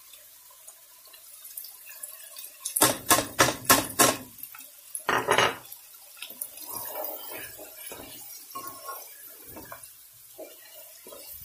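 Kitchen-ware clinking and knocking: about five quick sharp knocks, then one more a second later, as a bowl of ground spices is emptied into a pot of mutton chops. After that come softer, irregular scraping sounds of a spatula stirring the meat and spices in the pot.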